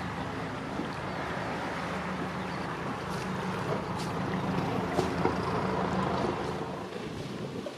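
River cruiser's engine running steadily as the boat passes, a low drone over water and wind noise, with a couple of sharp ticks. It drops away suddenly just before the end.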